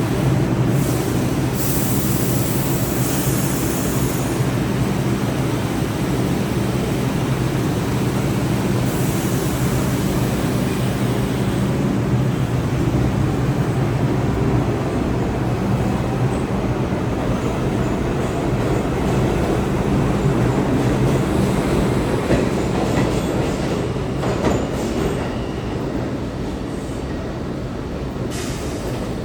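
An R62A subway train running on the rails with a steady low hum and rumble, with brief high-pitched wheel squeals near the start and again about ten seconds in; it grows a little quieter near the end.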